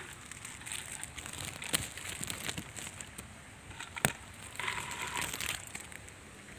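A nylon mesh fish keep net being handled, its netting rustling and crackling, with two sharp clicks about two and four seconds in.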